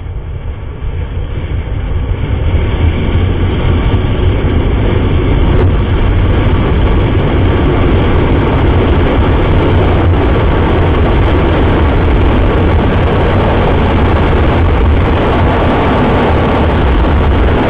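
Wind rushing over the camera microphone of a Yamaha motorcycle being ridden at speed, with the bike's running noise underneath. It builds over the first two or three seconds as the bike speeds up, then holds loud and steady.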